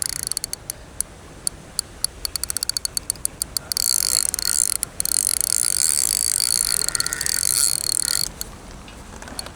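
Fishing reel's clutch clicking as a hooked carp pulls line off: irregular clicks that speed up, then a continuous ratcheting buzz for about four seconds that stops sharply near the end.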